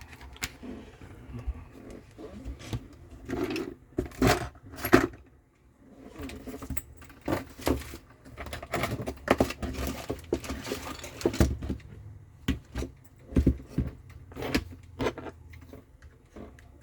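Small metal tools and parts clinking, tapping and scraping in irregular clicks over a faint low hum.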